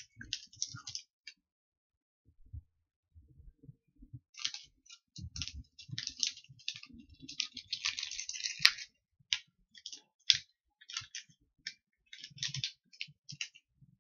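Candy wrapper crinkling in the hands as it is torn open and handled: irregular crackles, sparse at first and much busier from about four seconds in, with one sharp click a little past the middle.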